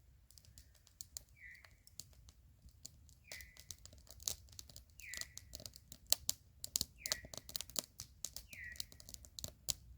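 Wood campfire crackling and popping with irregular sharp snaps. Behind it, a short call that falls in pitch repeats about every two seconds.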